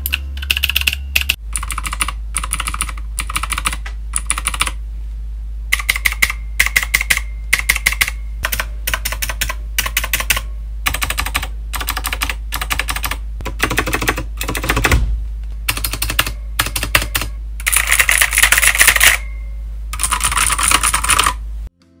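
Typing on the Akko Hello Kitty mechanical keyboard: runs of fast keystroke clacks broken by short pauses, over a steady low hum. The switches give no spring ping.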